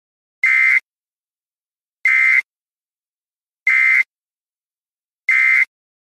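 Electronic alert tone from a severe-weather warning web page: four identical short, high-pitched beeps, evenly spaced about a second and a half apart.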